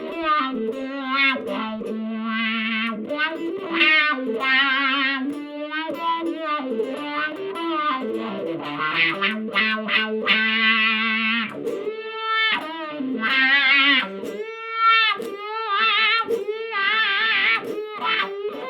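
Electric guitar played through a KATANASOUND handmade effect pedal: a single-note lead line whose notes waver in pitch, in short phrases with brief gaps.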